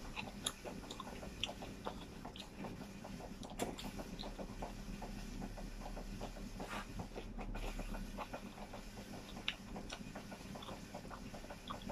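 A person eating rice and grilled chicken by hand, with soft chewing and lip-smacking heard as many small, irregular clicks.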